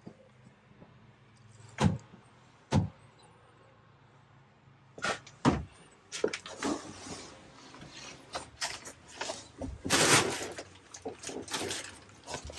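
Handling noises in a small boat cabin: two sharp knocks, then a busy run of clicks, bumps and a scraping rustle about ten seconds in, as cabin panels and a floor locker lid are moved.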